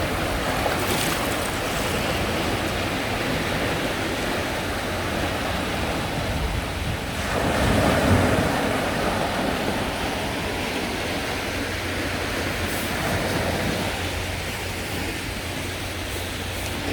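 Sea waves washing onto a shore in a continuous surf, with wind. One wave swells loudest about seven to eight seconds in, then falls back.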